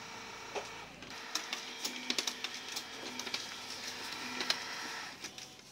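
HP LaserJet Pro MFP M177fw laser printer's drive motor and gear train running its start-up cycle: a steady hum with irregular clicks, dying away near the end. With a gear just refitted to clear a 54.2 error, the mechanism runs without slipping or jumping.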